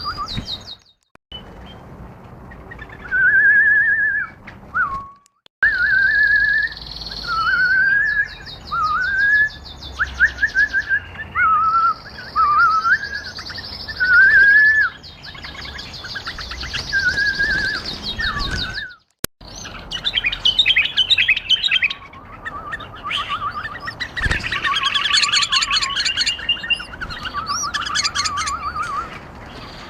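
Bulbuls singing: short warbled phrases repeated one after another, with rapid high twittering trills among them.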